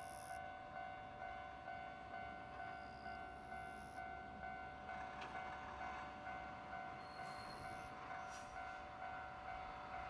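A JR Hokkaido 789 series express train approaching at a distance, heard faintly, over a ringing tone that pulses about twice a second.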